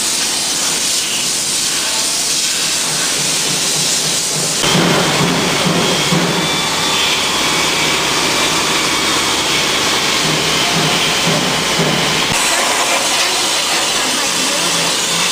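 Loud steady hissing of a compressed-air tool at work, such as a blaster or spray gun used in stripping or painting a tractor. The sound changes abruptly about four and a half seconds in and again near twelve seconds. In the middle stretch a lower hum and a faint high whine join the hiss.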